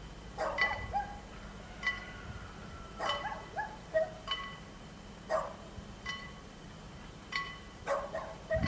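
A dog barking over and over, roughly once a second.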